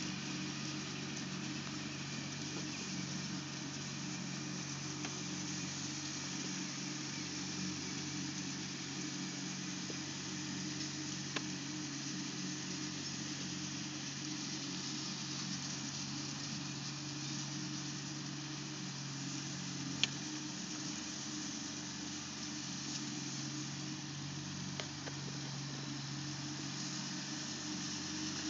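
Massey Ferguson GC2600 compact tractor's diesel engine running steadily while mowing, a constant drone. A few brief sharp clicks, the loudest about two-thirds of the way through.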